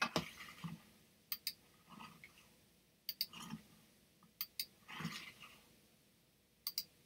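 Faint computer mouse clicks: four quick paired ticks, a press and release each, about every second and a half, with soft rustles between.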